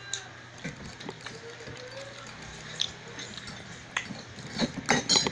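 Two people chewing mouthfuls of spaghetti, with scattered clicks of forks on plates that come thicker near the end.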